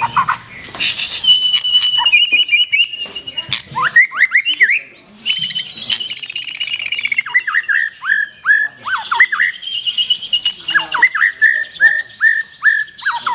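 Black-tailed white-rumped shama (murai batu ekor hitam) singing a loud, varied song of whistles and chirps. It holds one long high whistle near the start, then moves into a fast run of repeated down-slurred notes in the second half.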